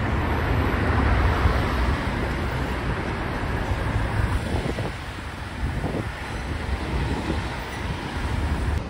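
Road traffic: cars driving past with a steady mix of engine and tyre noise, loudest in the first couple of seconds.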